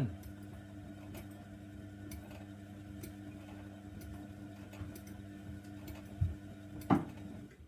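Hoover Nextra washer dryer running its wash: a steady motor hum with scattered light ticks from the turning drum, and a louder knock about seven seconds in, after which the sound drops away.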